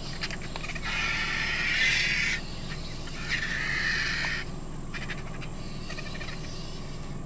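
Vultures squabbling over a carcass: harsh, hissing calls in two bursts of about a second each, then a few fainter ones. A steady low hum runs underneath.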